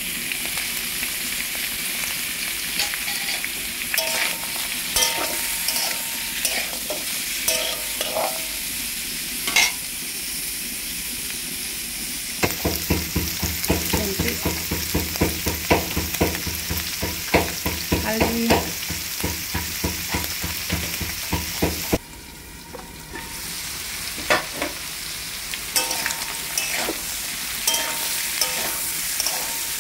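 Pork pieces and sliced onions sizzling in a hot metal wok, with a metal spatula scraping and clicking against the pan as they are stirred. The clatter is thickest in the middle stretch.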